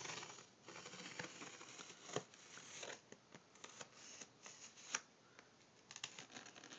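A mailed package being opened by hand: rustling and scraping, with several sharp clicks and snaps, the sharpest about two and five seconds in.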